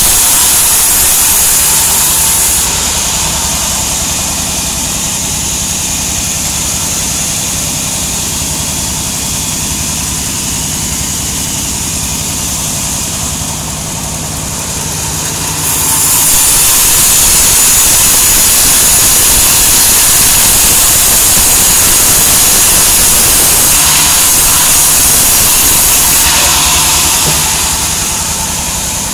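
Band sawmill cutting sengon logs: a steady motor hum under a loud, high hiss of the blade in the wood. The hiss eases about two and a half seconds in, comes back at about sixteen seconds for some ten seconds, then eases again.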